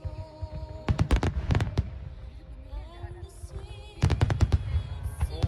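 Aerial fireworks bursting: a few sharp cracks and booms about a second in, then a dense rapid volley from about four seconds in. Music plays underneath throughout.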